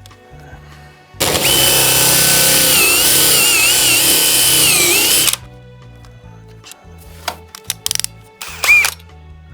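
Power drill running hard for about four seconds, its motor whine wavering under load as a long pilot bit bores through the house wall, then a few brief trigger bursts near the end. A music bed plays underneath.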